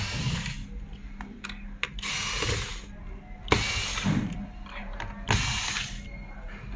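Cordless electric screwdriver running in four short bursts, each under a second, backing screws out of a robot vacuum's plastic base.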